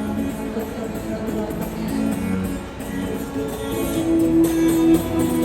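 Guitar playing an instrumental passage of a pop song, with notes ringing on, one held prominently near the end.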